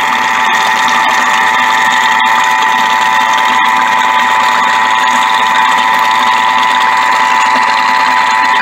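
Thermomix motor running at speed 4, its blades beating softened butter in the mixing bowl: a steady, unchanging whine.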